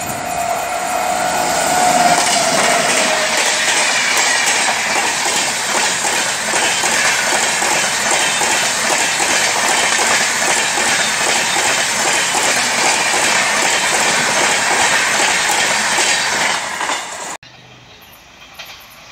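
Express passenger train behind an electric locomotive passing close at speed, its wheels clattering rhythmically over the rail joints, with a steady tone in the first couple of seconds. Near the end the sound cuts off suddenly to a much quieter background.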